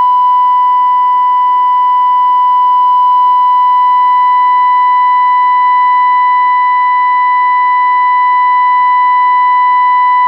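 Steady, unbroken test tone at a single pitch with a slight buzzy edge, played through the Zenith Royal 51 transistor radio's small speaker: the signal generator's modulation tone coming through while the radio's FM IF stage is peaked at 10.7 MHz.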